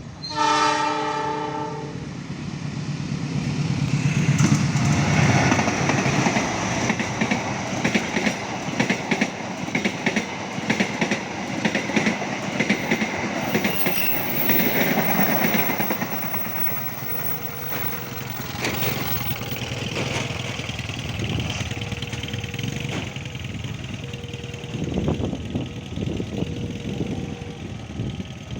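A train horn sounds one short blast, then the train passes close by. Its wheels clack rapidly over the rail joints as it goes.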